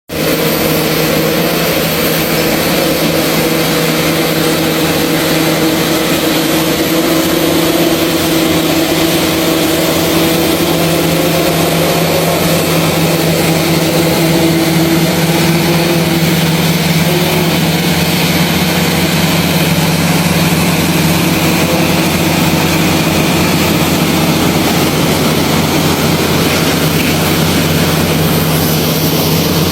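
Heavy diesel engines of crawler bulldozers towing a logging truck uphill, running steadily under load: a loud, continuous drone with a steady whine in it.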